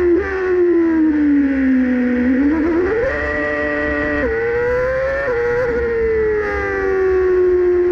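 Formula 1 car's engine heard from the onboard camera behind the cockpit, running at moderate revs. Its pitch falls for the first two seconds, climbs sharply, drops suddenly about four seconds in and climbs again, then eases down to a steady note.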